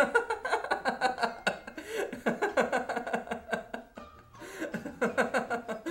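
A man laughing, a quick run of short 'ha' bursts, which pauses briefly about four seconds in and then starts again.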